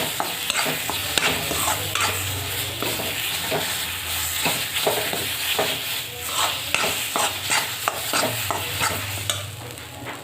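A spoon stirring and scraping peas into roasted gram flour in a kadhai over the gas, a fast irregular run of clicks and scrapes over a light sizzle. The stirring stops near the end.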